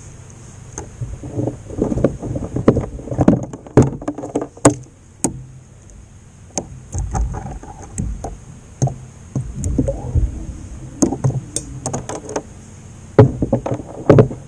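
Irregular knocks, bumps and handling noise on a kayak, with a few sharp clicks scattered through.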